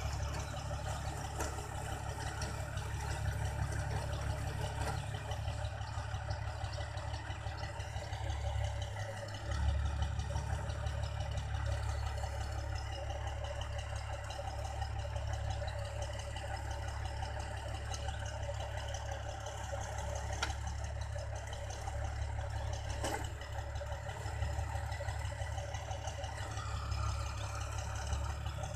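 New Holland combine harvester's diesel engine running steadily with its unloading auger working to unload paddy, a constant low hum that dips briefly about nine seconds in and picks up again.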